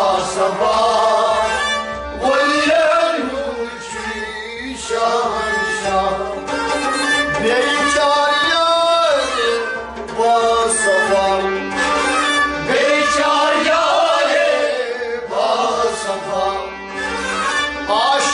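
A devotional kalam sung by a male voice, accompanied by a harmonium, a bowed fiddle played upright, and a plucked long-necked lute. The melody slides and bends between notes over the steady harmonium.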